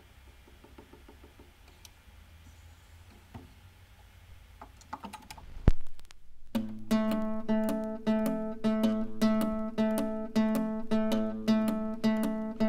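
Dual 621 turntable: a faint low hum and a few small clicks, then about six seconds in a sharp low thump as the stylus sets down on the record. After a brief quiet moment, a record starts playing acoustic guitar with evenly repeating plucked notes.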